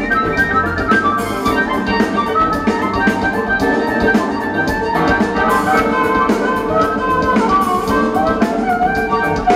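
Live rock band playing: electric guitars, bass and drum kit, loud and steady throughout.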